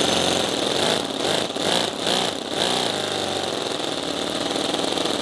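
Toyan 28cc four-stroke nitro V8 model engine running with its exhaust headers removed, so the exhaust ports are open. It surges unevenly a few times about a second in, then settles into a steady run.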